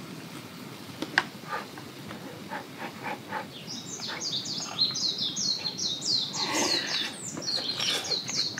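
A wild bird sings a fast run of high, falling chirp notes from about four seconds in. Before that there are a few light clicks of chopsticks against a bowl.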